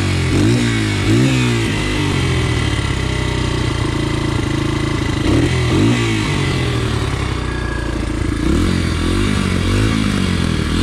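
Dirt bike engine running, its pitch rising and falling repeatedly as the throttle is opened and let off.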